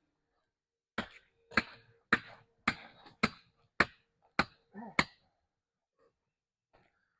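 A run of eight sharp, evenly spaced knocks, a little under two a second, that starts about a second in and stops about a second before the end.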